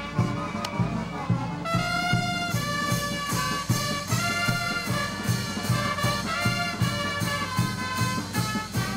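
Festive band music: a melody carried by wind instruments over a quick, steady beat.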